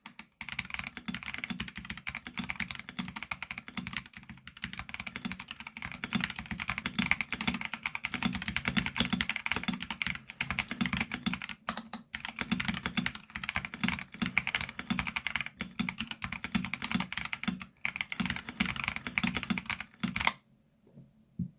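Continuous fast typing on a Royal Kludge RK68 mechanical keyboard fitted with unlubricated Akko purple tactile switches: a dense stream of keystroke clacks that stops about a second before the end.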